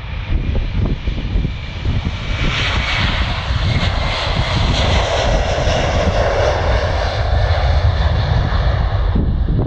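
Airbus A330-300 jet engines at takeoff thrust as the airliner speeds down the runway past the listener: a loud rushing roar that swells a couple of seconds in, is loudest through the middle and stays strong as the aircraft rotates near the end.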